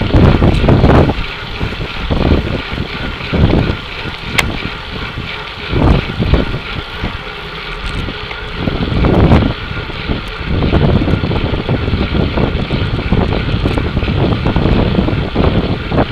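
Wind buffeting the microphone of a bike-mounted action camera while riding at race speed, coming in uneven gusts over a steady hiss of road and bicycle noise. A single sharp click sounds about four seconds in.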